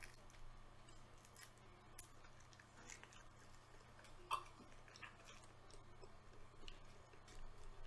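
Faint close-up chewing of food by a person, with scattered soft mouth clicks and one sharper click a little past four seconds in.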